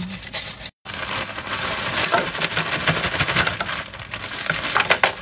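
Butter and grease sizzling and crackling under hot dog buns toasting in a frying pan, with a plastic bag crinkling. The sound breaks off for an instant just under a second in.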